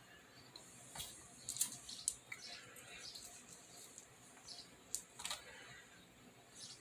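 Faint handling noises from a small RC tire being worked over its wheel: light clicks and short scratchy rubbing sounds, loudest about a second in and again around five seconds.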